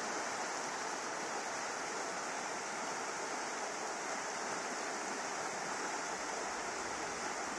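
River water rushing steadily over a riffle, a constant even wash with no breaks.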